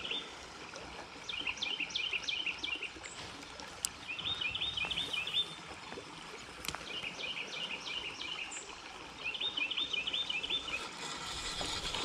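A songbird singing four short songs, each a quick run of repeated notes, about every two and a half seconds, over a faint steady hiss of flowing creek water.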